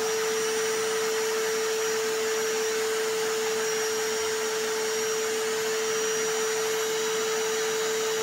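Vacuum cleaner noise layered with a hammer drill: a steady, unbroken rush of noise with one constant hum, loud and unchanging throughout.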